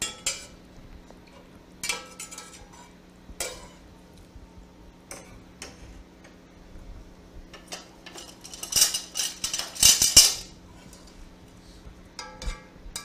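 Metal slotted spoon clinking and scraping against an enamelled braiser and a serving platter as roasted potatoes are spooned out. A few separate knocks come early, then a busy run of louder clinks comes about nine to ten seconds in.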